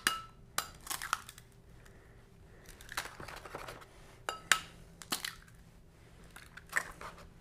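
Raw eggs being cracked by hand over a small glass bowl: a series of short, sharp cracks and clicks of breaking eggshell and shell against glass, spaced irregularly.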